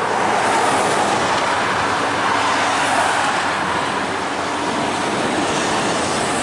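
Steady road traffic noise, the continuous hiss and rumble of passing vehicles' tyres and engines, swelling slightly about half a second in and again around three seconds in.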